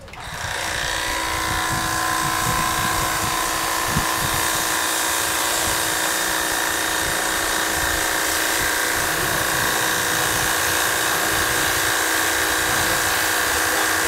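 Electric pressure washer spraying a fine jet of water onto the aluminium fins of an air conditioner's outdoor condenser coil during cleaning. A steady hiss of spray over the steady whine of the washer's pump motor, starting abruptly.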